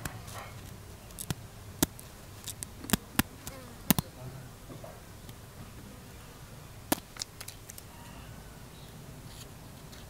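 Scissors snipping through a sheet of grid paper: a run of sharp clicks between about one and four seconds in, then a second short run around seven seconds in.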